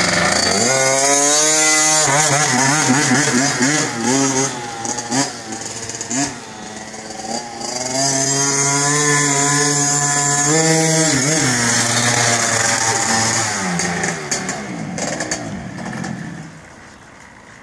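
Two-stroke engine of a KTM 50 mini dirt bike revving and running as it is ridden, rising in pitch as it accelerates. It goes quieter for a few seconds, comes back loud, and dies down near the end.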